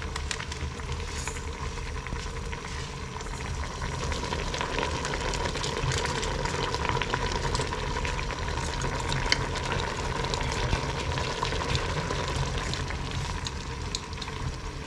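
Pot of bamboo shoots cooking in coconut milk, bubbling and sizzling steadily at the boil, with many small crackles.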